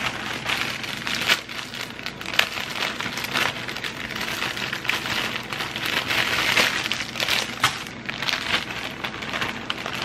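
Plastic salad-mix packaging crinkling and rustling while a portion of salad leaves is taken out by hand, with many small irregular crackles.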